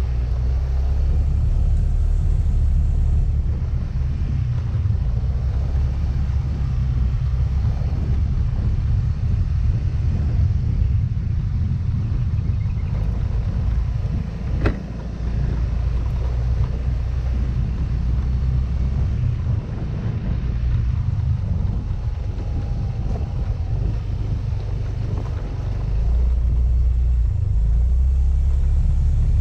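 Yamaha Mio Gravis scooter under way, its 125 cc single-cylinder engine running under a steady low rumble of wind and road noise. One sharp knock about halfway through, and the rumble grows a little louder near the end.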